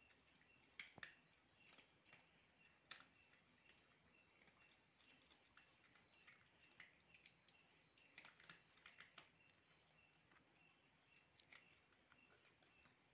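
Faint, irregular crunching of cats chewing dry kibble: soft crisp clicks coming in small clusters.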